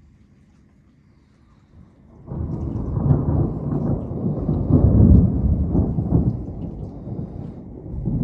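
Thunder: a loud, low rumble that breaks in suddenly about two seconds in, swells to its loudest near the middle, then rolls on more softly.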